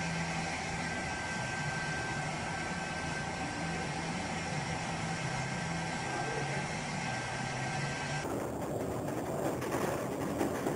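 A steady mechanical drone with a constant low hum. About eight seconds in it cuts abruptly to a rushing noise of wind and sea at a storm-tossed container ship's bow.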